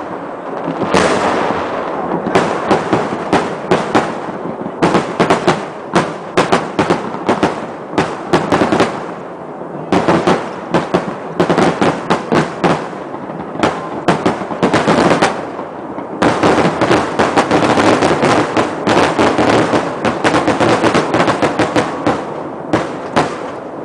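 Aerial fireworks bursting in a rapid, dense barrage of bangs and crackles, with brief lulls twice, thinning out near the end.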